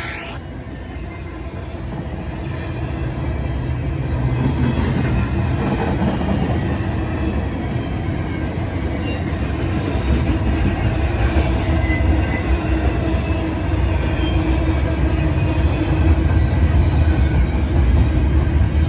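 Norfolk Southern freight train rolling past, a steady rumble of wheels and cars that grows louder through the first half and stays loud.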